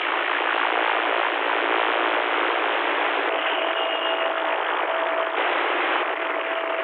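CB radio receiver hiss and static over its speaker: a steady, thin rushing noise on an open channel. A faint steady whistle tone comes and goes from about halfway through.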